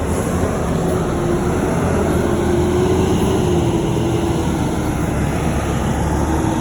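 Vehicle engine running steadily, with a faint wavering whine over it.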